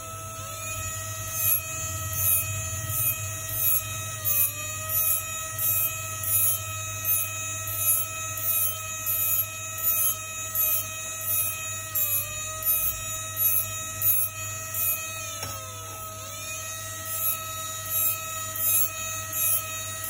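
Jeweller's rotary micro-motor handpiece running with a steady high whine while its small cutting bit works gold chain links. Its pitch sags briefly three times as the bit loads up, and a regular hissing scrape pulses about one and a half times a second.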